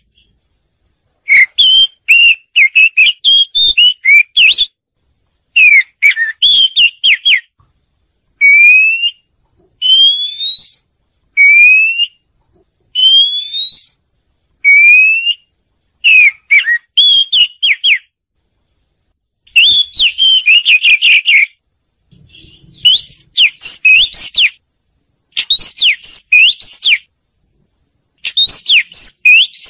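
Oriental magpie-robin singing: short phrases of rich, varied whistles and warbles, some of them clear rising whistles, repeated every couple of seconds with abrupt silent gaps between them.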